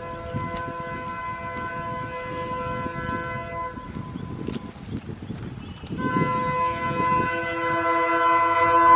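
EMD diesel locomotive's horn sounding a long, steady chord that fades out about four seconds in. A second, louder blast starts about six seconds in, and a lower note joins it a second later, over the low rumble of a moving train.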